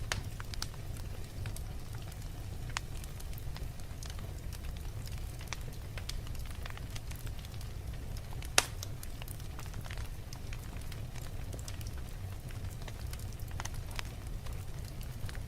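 Wood fire crackling: scattered small pops and snaps over a steady low rumble, with one louder pop about eight and a half seconds in.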